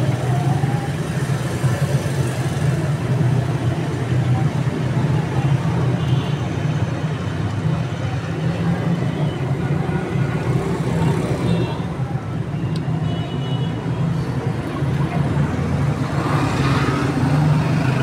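Steady low hum and noise of road traffic in the background, with a few faint short high chirps from the penned quails now and then.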